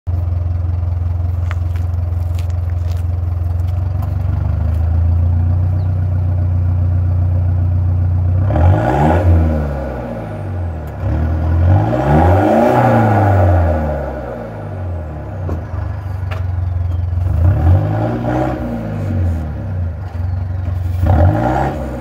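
Mitsubishi MN Triton's 4D56T 2.5-litre four-cylinder turbo-diesel idling steadily through a 2.5-inch mild steel muffler delete with a diff-dump outlet, then revved four times, the second rev the longest.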